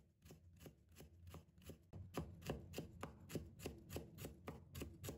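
Cleaver chopping ginger slices into thin strips on a wooden cutting board: quick, even knife taps about four a second, faint at first and a little louder from about two seconds in.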